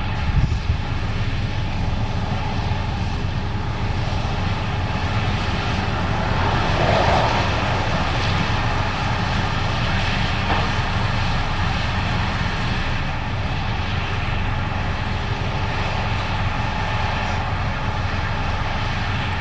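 Case IH 8250 Axial-Flow combine running steadily under load while harvesting corn: a steady engine drone with several held tones, swelling briefly about seven seconds in.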